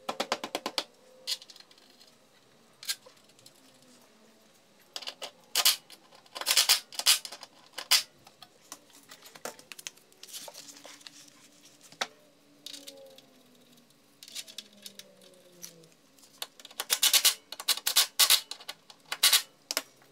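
Hand ratchet wrench clicking in short runs of rapid, even clicks, several times over. The loudest runs come about a third of the way in and near the end, with single clinks of tools between them.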